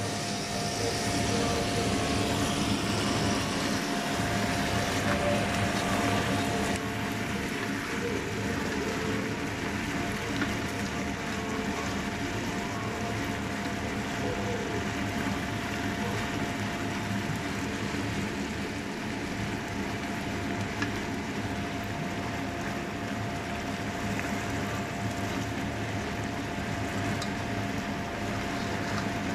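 Langoustines, prawns and mussels sizzling in an oiled frying pan, with a few light taps of a wooden spatula, over a steady hum with a constant tone. The sizzle is louder for the first seven seconds or so, then settles.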